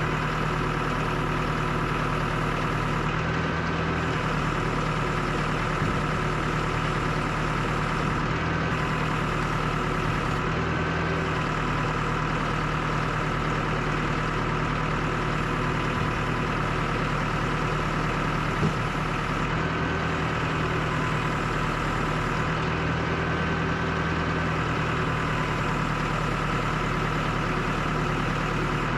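Mahindra tractor's diesel engine running steadily while its front loader is worked, the engine note changing every few seconds as the hydraulics take up load. A single sharp knock comes about two-thirds of the way through.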